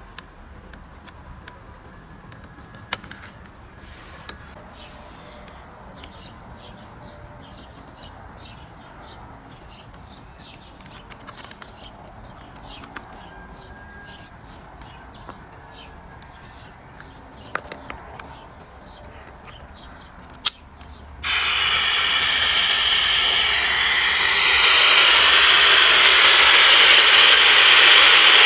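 A few handling clicks over a low background, then a portable FM radio's loudspeaker suddenly bursts into loud static hiss between stations, growing louder a few seconds later.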